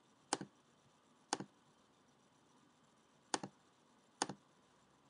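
Computer mouse button clicked four times, each a sharp press-and-release click. There is about a second between the first two, a two-second pause, then two more clicks close together.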